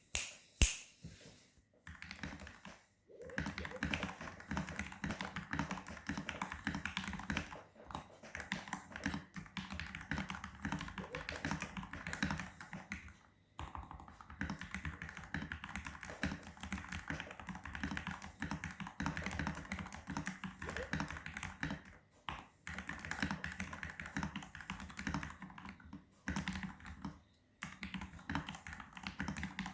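Typing on an FL-Esports CMK87 mechanical keyboard with lubed Gateron Pro Milky Yellow linear switches, stock FSA keycaps and stock PCB and case foam: a fast, continuous run of keystrokes broken by a few brief pauses. One sharp, louder clack sounds just under a second in.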